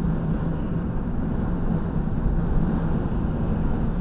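Steady engine hum and road noise inside a van's cab while driving at an even speed.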